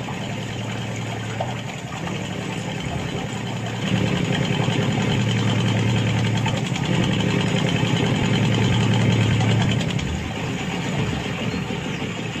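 Mini tractor engine running steadily, louder for several seconds in the middle, then easing back.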